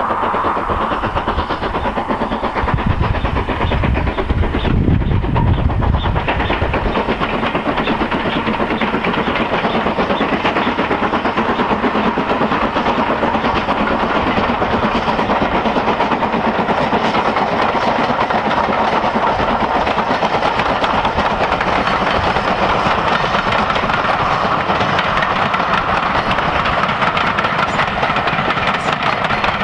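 BR Standard Class 4MT 2-6-4 tank steam locomotive working a passenger train past, with steam hiss, giving way to the steady rumble and clickety-clack of the coaches' wheels on the track.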